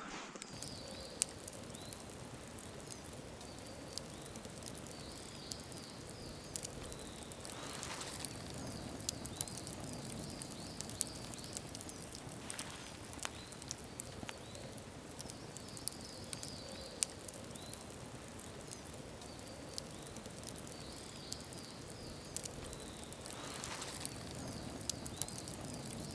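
Wood campfire crackling: irregular sharp pops and snaps over a steady soft hiss of burning sticks.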